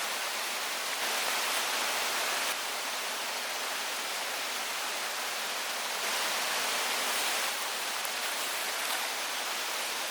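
Steady rush of creek water falling over rocks, a loud even hiss, with slight jumps in loudness a few times.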